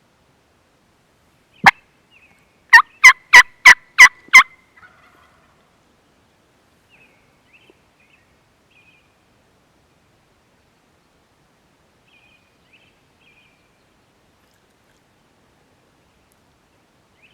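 Turkey yelps: a single sharp note, then a quick run of six loud yelps at about three a second. Faint small-bird chirps follow.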